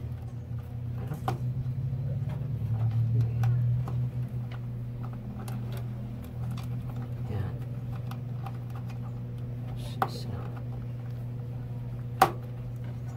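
Small clicks and knocks of a power-supply cable connector being handled and pushed into place inside a desktop computer case, with two sharper clicks in the last few seconds, over a steady low hum.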